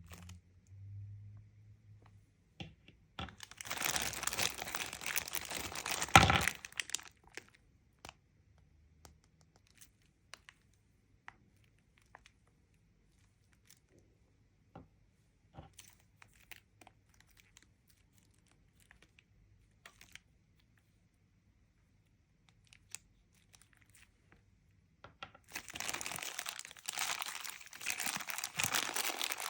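Toy packaging being torn open and crinkled by hand, in two spells: one about three to six seconds in that ends in a sharp snap, and another from about twenty-five seconds in. In between, scattered light clicks and taps.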